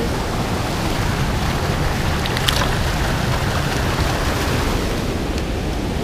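River current rushing over a low concrete weir: a steady wash of falling water.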